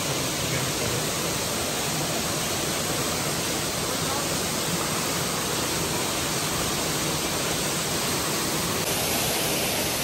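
Small waterfall cascading over rock slabs: a steady rush of water.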